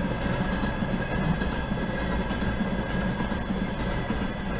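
Freight train of railway flatcars rolling past at a steady pace, a continuous low rumble of wheels on the rails.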